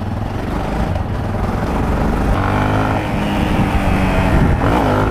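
Motorcycle engine accelerating hard, its pitch climbing and then dropping at an upshift about three seconds in, and again near the end.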